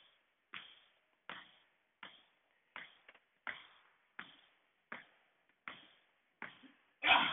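Evenly spaced thuds of a person landing from jumps on the floor, about three every two seconds. A louder burst of noise breaks in at the very end.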